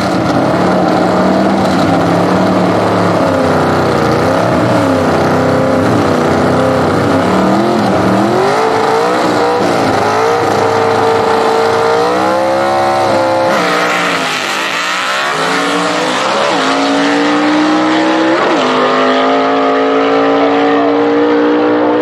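Gasser drag car's engine revving unevenly at the starting line, then a full-throttle launch about two-thirds of the way in. The note climbs, drops sharply twice as it shifts gears, and climbs again as the car runs down the drag strip.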